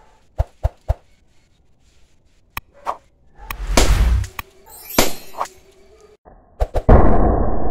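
A large water-filled balloon hit by a slingshot shot bursts about three and a half seconds in: a loud pop with the water splashing down. Several sharp clicks come before it, and a loud, muffled sound fills the last second or so.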